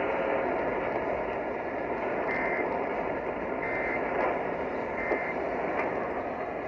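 Steady static hiss with three short high beeps a little over a second apart.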